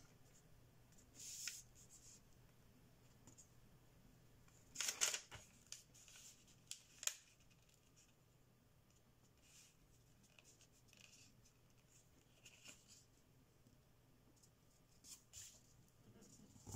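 Thin kami origami paper being folded along its diagonal and creased flat by hand: faint, scattered crisp rustles and swishes of paper, the loudest about five seconds in.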